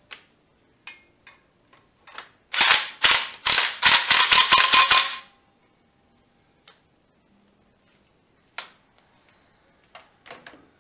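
A cordless impact driver runs in a string of quick bursts for about two and a half seconds, driving bolts home. Before and after it come a few light clicks and knocks of parts being handled.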